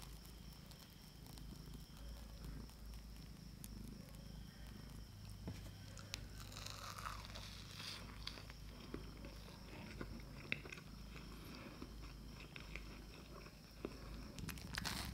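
Faint, close-miked chewing of soft soufflé omelette, with a few light clicks scattered through it, over a low steady hum.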